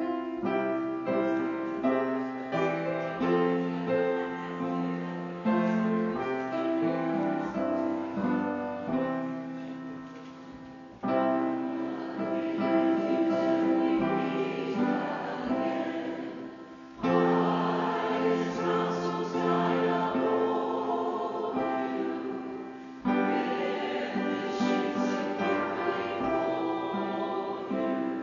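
Slow keyboard music of held chords, each phrase starting afresh with a louder attack about every five to six seconds.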